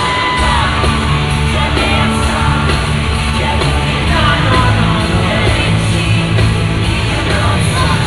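Loud live concert music over arena speakers, with a heavy bass line, and the crowd screaming and yelling over it.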